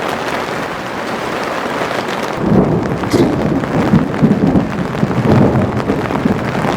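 Heavy rain shower pouring down steadily, with a louder, uneven low rumble joining about two and a half seconds in.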